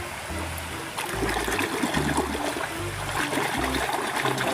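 River water splashing and trickling as a muddy toy is rinsed by hand, with many small irregular splashes over a steady flow.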